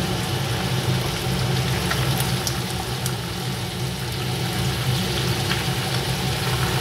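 Tilapia pieces sizzling and bubbling in oil and sauce in a frying pan, with a few light clicks of a utensil against the pan as the fish is turned. A steady low hum runs underneath.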